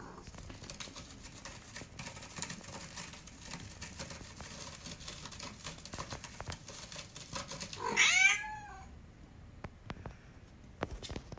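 A young kitten gives one loud, high meow about eight seconds in. Soft rustling and small clicks run before it, with a few more clicks near the end.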